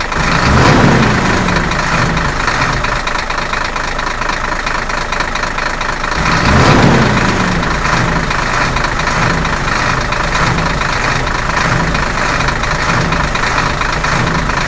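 Bulldozer engine running steadily, swelling louder twice: about a second in and again about seven seconds in.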